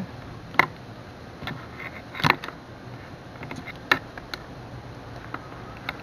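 Handling noise: several scattered sharp clicks and knocks as a power cord's plastic plug and a multimeter's test probes are handled, the loudest a little after two seconds in.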